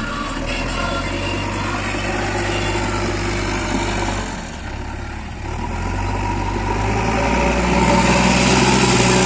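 Heavy diesel engine of working earthmoving machinery running steadily, dipping briefly about halfway, then rising louder near the end.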